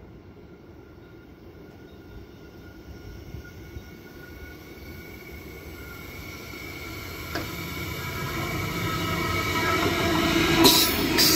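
Queensland Rail electric suburban train approaching along the track, its sound growing steadily louder, with a steady high whine. There is a burst of sharp clicks near the end as it draws alongside.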